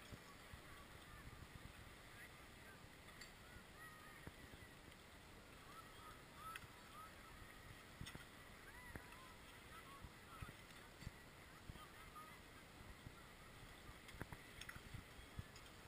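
Near silence: faint outdoor ambience, with a few faint, distant short calls in the middle and a few soft ticks.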